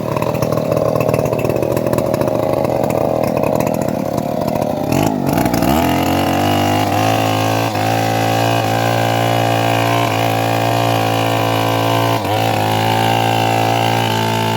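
Engine of a homemade bandsaw sawmill running hard under load while the blade cuts a log. About five seconds in, its pitch drops and it settles into a steady, even run.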